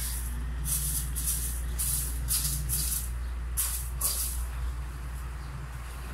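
A run of short, sharp rustles and scrapes close to the microphone, about a dozen in the first four seconds and then fewer, over a steady low hum.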